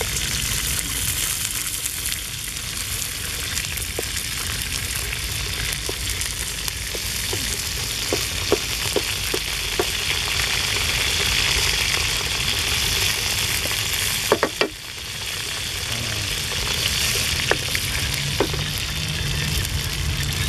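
Meat frying in hot oil in a steel wok over a wood fire: a steady sizzle with scattered sharp pops, and a wooden spatula stirring in the pan. A louder double knock comes a little past the middle.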